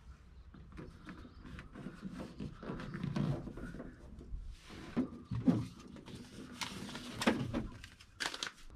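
Foil-backed sound-deadening mat being pressed and rubbed onto a van door's bare steel inner panel by hand: irregular crinkles, scrapes and taps, with a few louder thumps on the sheet metal.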